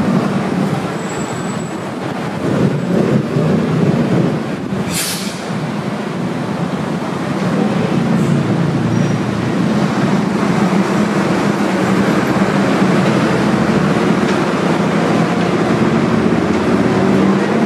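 Steady low rumble of city traffic, with a short hiss about five seconds in.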